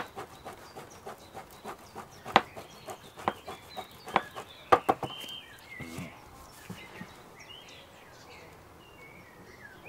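Hard cheese grated on a stainless steel box grater: a run of scrapes and sharp clicks through the first half, the loudest near the start and around four to five seconds in. After that, small birds chirp in the background.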